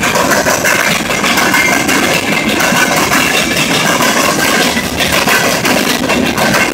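Freight train's open-top hopper cars rolling past close by over a rail crossing diamond: a loud, steady rumble and rattle of steel wheels on rail, with clattering as the wheels cross the diamond's gaps.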